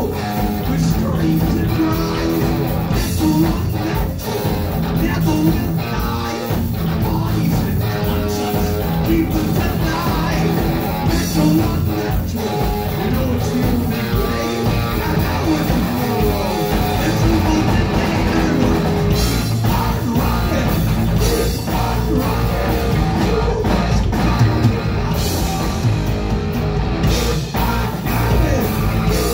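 Heavy metal band playing live: distorted electric guitar over bass and a drum kit, loud and unbroken.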